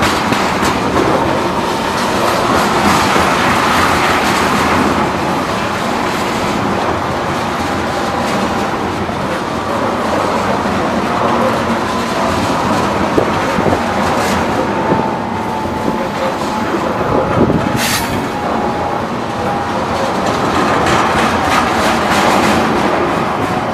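Train running on the rails: a steady rumble with wheels clicking over the track, and a faint whine that slowly falls in pitch.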